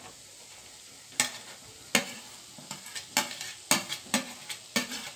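Diced boiled potatoes scraped off a plastic chopping board into an aluminium kadai with a metal masher: about eight sharp knocks and taps of the utensil, some ringing briefly, over a faint steady sizzle from the pan.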